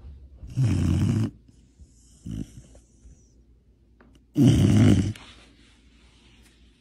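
Sleeping yellow Labrador retriever snoring: two long, loud snores about three and a half seconds apart, with a fainter short one between them.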